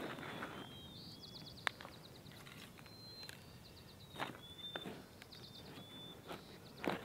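Faint outdoor ambience of repeated high-pitched chirps and short trills from small animals, broken by a few sharp clicks or knocks, the loudest a little under two seconds in.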